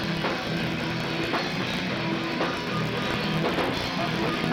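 Hardcore punk band playing live: distorted electric guitars, bass and drum kit going together in a dense, steady wall of sound, picked up by a camcorder's built-in microphone with the top end cut off.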